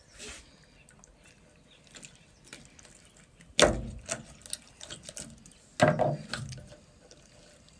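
A trout being gutted by hand on a cleaning board: small wet cutting and handling sounds from the knife and hands, with two sharp knocks, one a little past the middle and a louder-peaked one about two seconds later.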